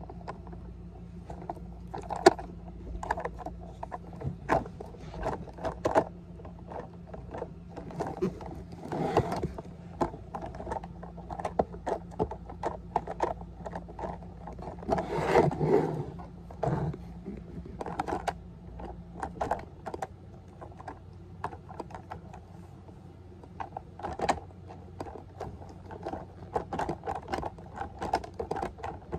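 Plastic toy garbage truck handled by hand: irregular clicks, knocks and scrapes from its grabber arm and plastic parts, with a longer scraping rustle about halfway through. A faint low hum underneath stops about two-thirds of the way in.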